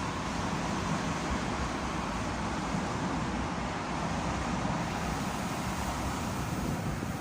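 A train running past on the tracks: a steady rumble and rolling noise, with a faint whine that fades out in the first second or so.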